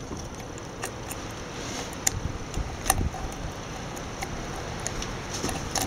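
A few sharp clicks and taps scattered over several seconds as a Schrader valve adapter is fumbled onto a quick-disconnect air fitting by hand, over low steady background noise.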